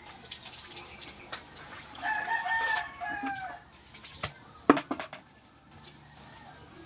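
A rooster crowing once, a held call of about a second and a half that falls in pitch at the end. A few sharp knocks follow about five seconds in.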